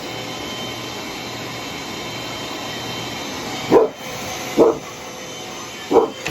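Vacuum cleaner running steadily with a faint motor whine, while a bully-breed dog barks three times at it in the second half.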